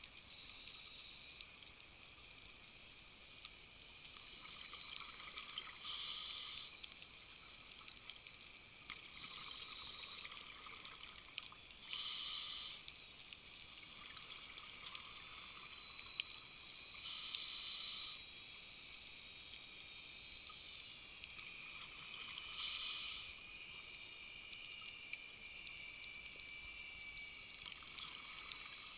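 Scuba diver breathing through a regulator underwater: a burst of exhaled bubbles about every five and a half seconds, four times, over a faint steady hiss with scattered sharp clicks and crackles from the reef.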